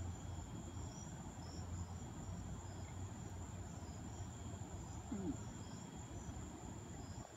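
Crickets chirping steadily at night, a high continuous trill with short repeated chirps, over a low steady hum.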